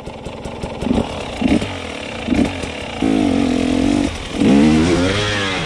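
Enduro dirt bike engine giving short throttle blips about a second apart, then held at higher revs and revved up and down as the bike climbs a rock slab.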